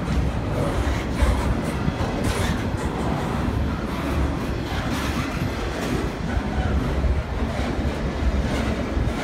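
Double-stack intermodal freight train's loaded container well cars rolling past close by: a steady low rumble of wheels on rail with repeated clacks.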